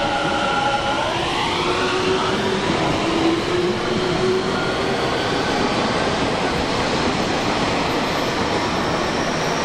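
Tobu Tojo Line electric train running loudly past the platform. Its motor whine rises in pitch about a second in as the train picks up speed, then gives way to steady running noise.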